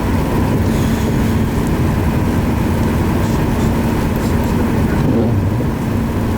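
Steady road and engine noise inside a moving vehicle, with a constant low hum.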